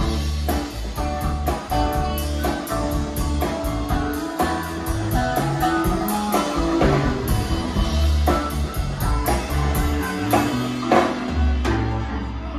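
Live blues-rock band playing an instrumental passage on electric guitar, electric bass, drum kit and keyboards, with harmonica. The cymbals keep a steady beat of about four strokes a second.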